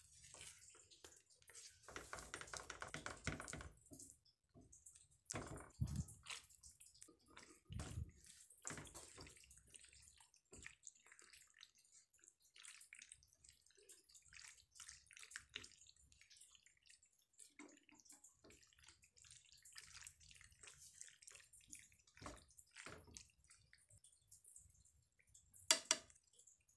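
A silicone spatula stirring thick white sauce, and then cooked macaroni in the sauce, in a nonstick frying pan: faint, scattered wet squishes and soft scrapes, a few soft knocks, and a short louder sound near the end.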